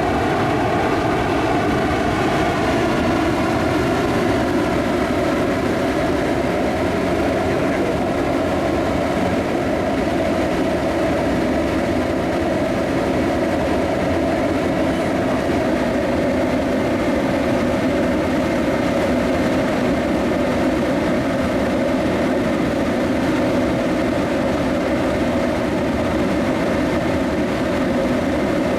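Pellet-burning combustion furnace running: a steady, loud rushing noise of the fire and its blower, with faint steady tones above it and no change throughout.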